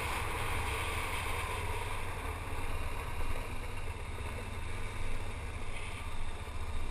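Steady, muffled rumble of an ATV riding along a dirt trail, heard through a helmet-mounted camera, with wind buffeting the microphone.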